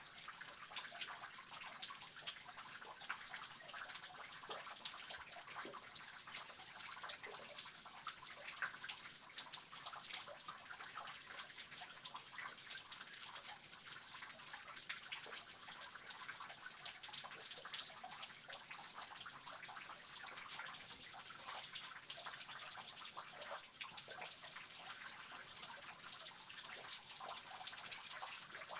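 Water dripping and trickling inside a cave: many small drops splashing at an irregular pace, several a second, over a steady hiss of running water.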